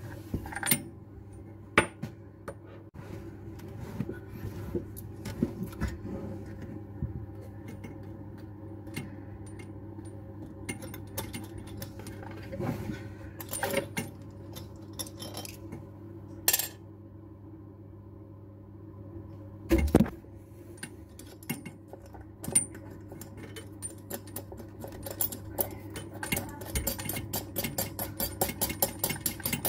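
Small metal parts of a basin mixer tap (braided flexible hoses, threaded fixing stud, washer) clinking and jangling as they are handled and fitted against a ceramic basin, with scattered sharp clicks and a quick run of small clicks near the end.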